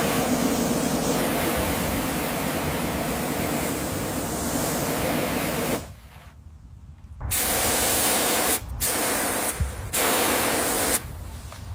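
Spray hissing: one steady spray of about six seconds, then after a pause three shorter spray bursts in a row.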